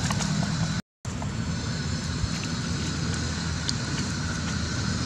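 Steady outdoor background noise, a low hum under a hiss, broken by a brief dropout about a second in.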